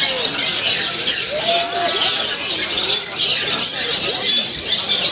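Many caged long-tailed shrikes singing at once, a dense, continuous tangle of overlapping chirps, trills and squawks, with human voices faintly underneath.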